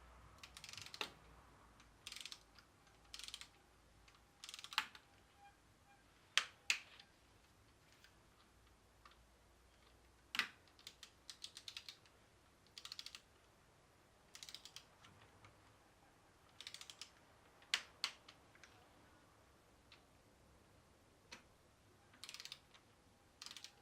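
Torque wrench with a Torx 25 bit ratcheting in short, scattered bursts, with a few single sharp clicks, as the stem's clamp screws are tightened to 8 Nm.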